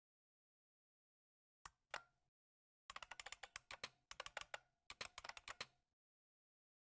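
Faint computer keyboard typing. A couple of keystrokes come about two seconds in, then a quick run of keystrokes lasts about three seconds.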